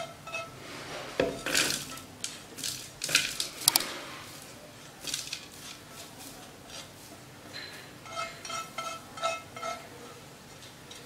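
Dry roasted nuts and seeds tipped into a plastic blender jar, rattling in a cluster of sharp strikes from about a second in. Before and after this come quick runs of light ringing clinks, like a spoon tapping a plate.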